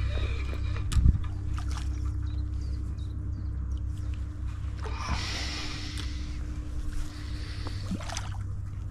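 Splashing at the water's surface about five seconds in as a hooked small bream is brought in, with a sharp thump about a second in, over a steady low rumble.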